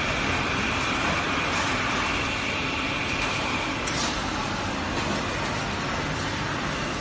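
Steady machinery din of an assembly-line conveyor system, with a steady high whine through the first half and a short hiss about four seconds in.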